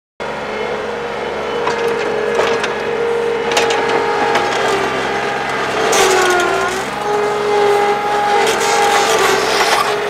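Skid-steer loader's engine running hard as the machine works a load of dirt, its pitch sagging briefly a little past halfway and then recovering, with several clanks from the machine.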